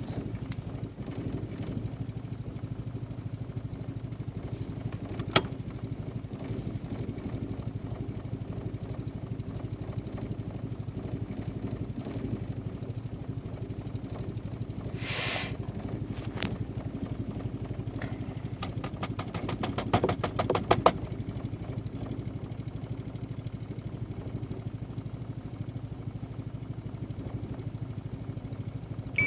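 A 1.8-litre turbocharged four-cylinder (1.8T) engine, one that is hard to start, idling steadily. A sharp click comes about five seconds in and a short hiss about halfway. A run of rapid clicks and knocks follows a few seconds later.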